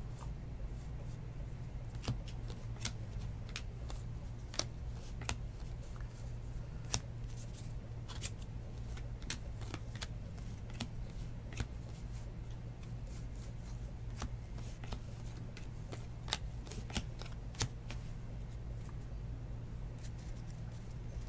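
A stack of 2019 Bowman baseball cards being flipped through and sorted by hand, each card slid off the stack with a sharp click at an irregular pace of about one or two a second. A steady low hum runs underneath.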